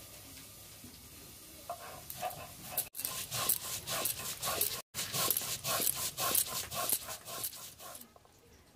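Poppy seeds being ground on a flat stone slab with a stone roller (sil-nora): a rhythmic gritty scraping of stone on stone, about four strokes a second, starting about two seconds in and breaking off twice for a moment.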